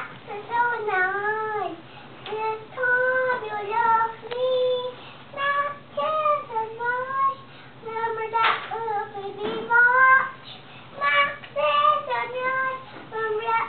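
A young girl singing in a high voice, in short phrases whose pitch slides up and down, with brief pauses between them.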